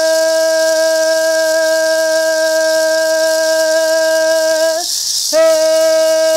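A woman singing one long held note of a Tukano chant while shaking a gourd rattle without pause. About five seconds in the note breaks off briefly for a breath, the rattle comes up louder, and then the note resumes.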